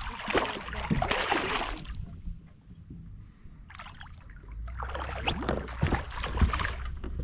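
A hooked redfish thrashing and splashing at the water's surface in two bouts: one at the start lasting about two seconds, and a second from about five seconds in.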